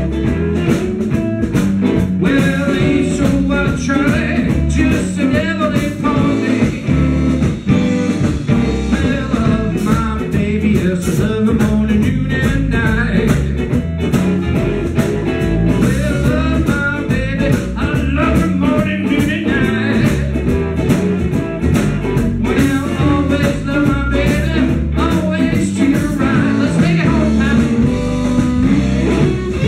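Live blues band playing an instrumental passage, with lead guitar over bass and drums.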